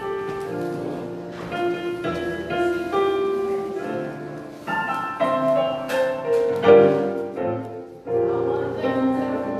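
Instrumental keyboard music, likely piano: held chords that change every second or so, without singing.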